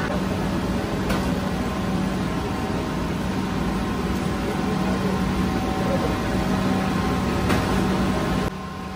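Bakery machinery running: a steady roar with a constant low hum, the kind made by a gas-fired rotating bread oven and its motor. It drops off abruptly shortly before the end.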